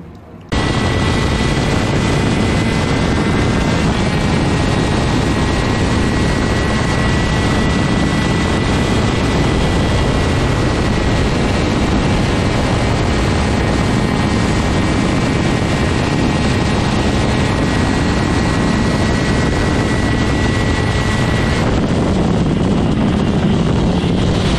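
Loud, steady rush of wind and engine noise from a TM 125cc two-stroke superkart running at speed on track, starting abruptly about half a second in. A thin steady whine runs through it and drops out near the end.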